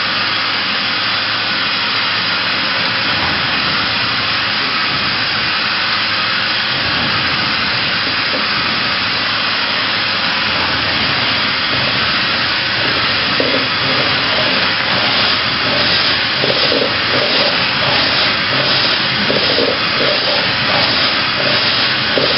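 Makino A81 horizontal machining center running with a steady, loud hiss while its spindle head travels along its axes. About halfway through, an uneven, rapid pulsing joins the hiss.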